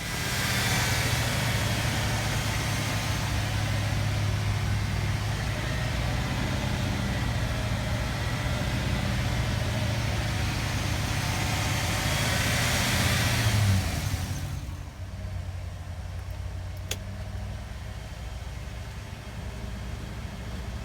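A vehicle engine running steadily, swelling briefly as if revved, then cutting out about 14 seconds in, leaving a quieter steady hum.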